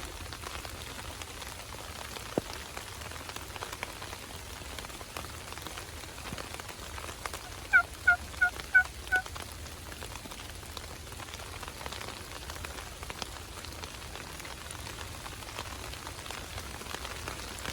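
Steady rain falling, with a single sharp tick early on. About eight seconds in, five loud, short turkey yelps come in an even series.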